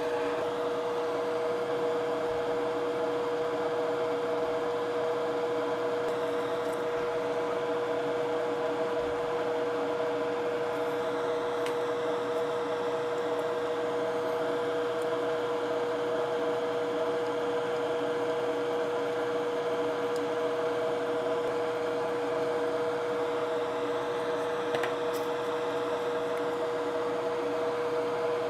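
Electric fan on a soldering bench running steadily: an even hum carrying a steady mid-pitched tone, with a few faint light ticks scattered through it.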